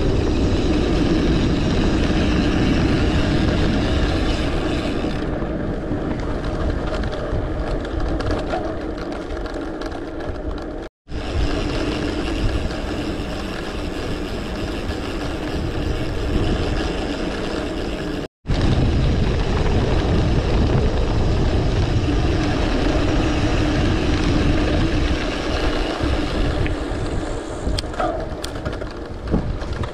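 Wind rushing over the microphone of a handlebar-view camera on a moving mountain bike, mixed with the tyres rolling on a paved lane. The sound cuts out for an instant twice.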